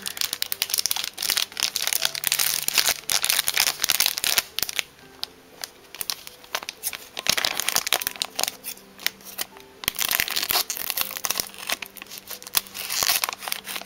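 Plastic packaging wrap crinkling and crackling in a dense, irregular run as it is handled and torn open. Soft background music with held notes plays underneath.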